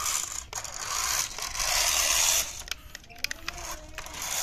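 Homemade RC off-road car's knobby tyres crunching and scraping over dirt and loose stones as it climbs, in uneven surges, loudest about two seconds in and easing off near three seconds.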